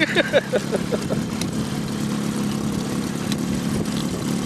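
Boat motor idling steadily, with a voice heard briefly in the first second.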